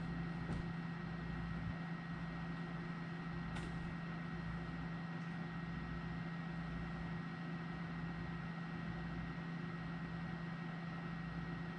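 Steady low hum of room tone, like an appliance or fan running, with a faint tick about three and a half seconds in.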